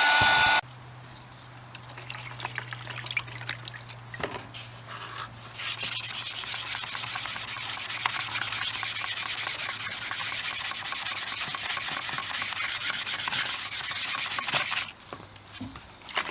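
A loud steady blowing noise cuts off about half a second in. Then comes wet-sanding of a painted motorcycle plastic panel by hand with 320-grit wet and dry paper: a few scattered scrapes, then fast, even rubbing strokes from about five seconds in, stopping near the end.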